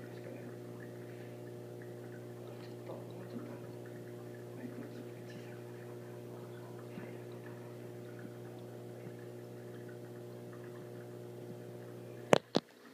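A steady low electrical hum with faint scattered ticks over it. Two sharp clicks come close together near the end.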